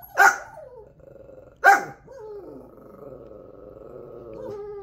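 Chihuahua giving two sharp alert barks about a second and a half apart, then a long, low, steady growl. It is barking at an animal it has been told is outside.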